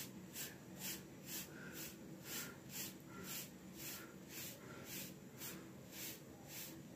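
Bristle hairbrush swept repeatedly over short, cream-coated hair, giving faint, even brushing swishes at about two a second.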